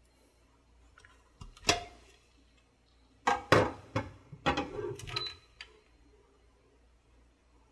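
Sharp clinks and rattling of metal against glass as the stainless-steel lid and infuser are taken off a Bastian glass electric tea kettle: one clink about two seconds in, then a quick cluster of clinks a second or so later, one ringing briefly.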